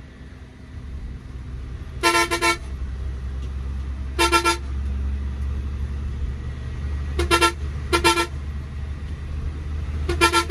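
A vehicle horn tooting in short beeps, some single and some in quick pairs, every couple of seconds, over the steady low hum of a running engine.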